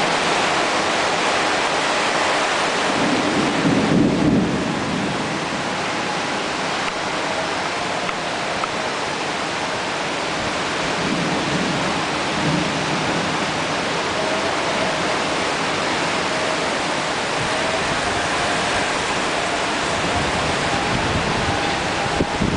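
Loud, steady rush of heavy storm rain and wind, with low rumbling swells about three seconds in and again around eleven seconds in.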